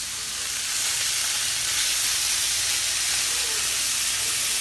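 Tofu and vegetable stir-fry sizzling in a hot pan as sauce hits it; the hiss swells about a second in and then holds steady.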